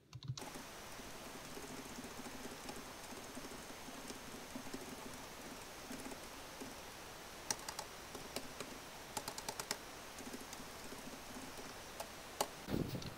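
Light typing on a laptop's chiclet keyboard: faint, irregular key clicks, coming in quick runs in the second half.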